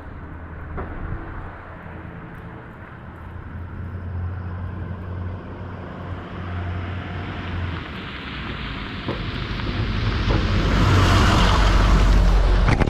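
A snowplow truck drives toward a camera set on a snowy road and then over it. The engine runs low and steady while tyre and road noise grows much louder over the last few seconds. A sharp knock or two comes right at the end as the truck's hanging mud flaps smack the camera.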